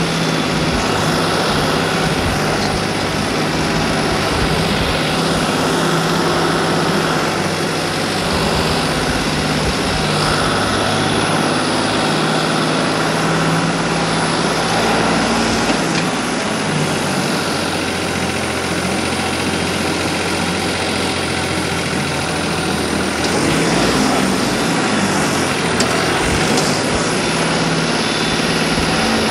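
Turbocharged Farmtrac 45 diesel tractor engine running steadily under load, pulling a 13-tine cultivator in fourth low gear.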